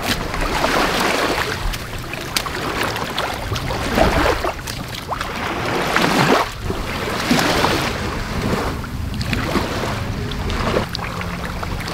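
Shallow seawater sloshing and small waves washing up a concrete boat ramp, surging and easing several times, with wind buffeting the microphone.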